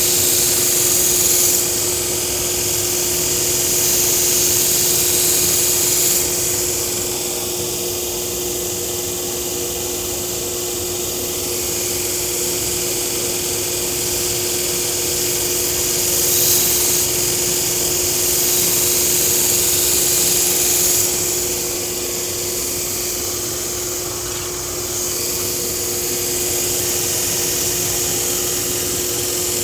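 Belt grinder running with a steady motor hum, while a stainless-clad nakiri blade is worked against its fine-grit belt in passes lasting a few seconds each. This is the hiss of steel on the abrasive, swelling and fading as the blade goes on and off the belt, in the clean-up and polishing stage after thinning.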